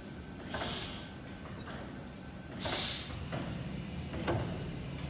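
Snow Steam Pump Works Corliss engine running on compressed air: two hisses of escaping air about two seconds apart, over a low steady rumble of the machinery. An onlooker takes the hiss for an admission valve rather than an exhaust valve.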